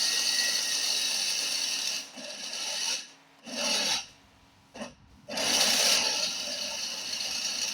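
Mixer grinder running on its lowest speed, its blades milling dry jowar (sorghum) grain into flour with a steady, rasping hiss. The sound cuts out suddenly a few times, between about two and five seconds in, and then picks up again. The owner remarks that the switch has a slightly loose contact.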